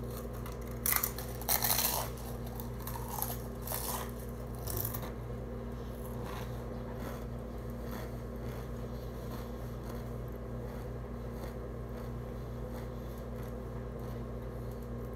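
A mouthful of stacked tortilla chips being bitten and chewed: several loud crunches in the first five seconds, then fainter chewing over a steady low background hum.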